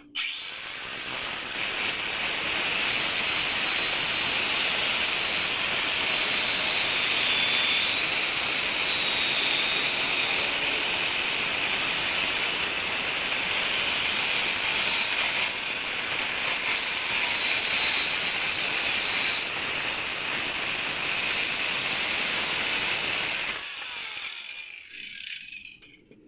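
Electric power tool working wood: the motor runs steadily with a high whine that dips and recovers under load for about twenty seconds, then spins down near the end.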